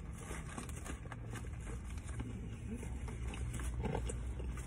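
Chewing a sandwich, with soft mouth sounds and faint rustles of its paper wrapper, over a steady low hum in a car's cabin.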